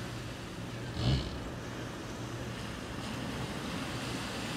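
Harbour ambience: a steady wash of sea and wind with a low hum underneath, and one brief louder sound about a second in.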